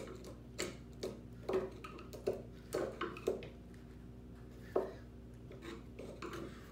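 A thin hand tool scraping and picking waste out of a chopped mortise in a wooden board: irregular scratches and clicks, one or two a second, the sharpest just before 5 seconds. A steady low hum runs underneath.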